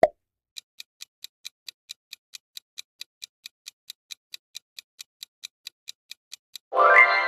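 Countdown-timer sound effect: a brief hit at the start, then a clock ticking steadily at about four and a half ticks a second. Near the end a loud ringing chime marks the timer running out and fades away.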